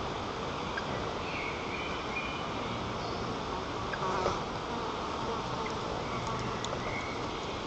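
Strong wind blowing over the nest-camera microphone, a steady rushing noise, with a few short faint high notes and a brief knock about four seconds in.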